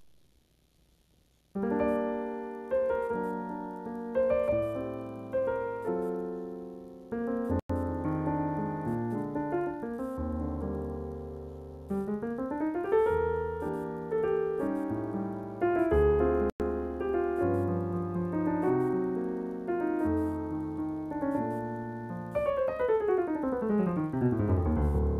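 Solo piano playing chords over low bass notes, starting about a second and a half in, with a quick upward run near the middle and a long downward run near the end.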